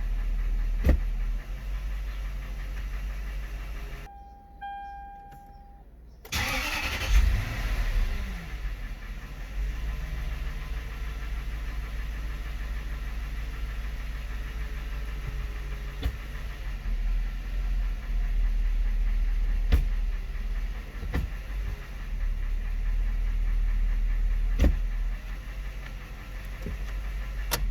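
2004 Lexus LX470's 4.7-litre V8 idling, then shut off about four seconds in; a brief tone sounds, and the engine cranks and restarts and settles back to idle. Single sharp knocks come through the idle at irregular intervals of a few seconds: the knocking noise whose cause the owner is trying to find.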